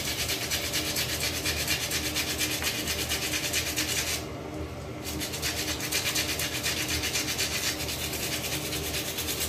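Toothbrush scrubbing a small dog's teeth in quick back-and-forth strokes, about five a second, with a short pause about four seconds in.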